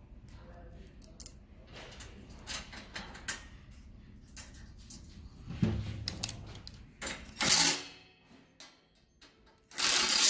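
Clicks and clatter of the metal hood and its bolts being handled and fitted, with two loud short bursts, one about seven seconds in and one near the end.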